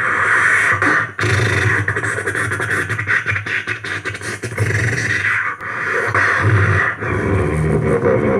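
Beatboxing into a handheld microphone: a continuous vocal drum pattern of low kick-like thumps, sharp clicks and hissy snare sounds in a steady rhythm.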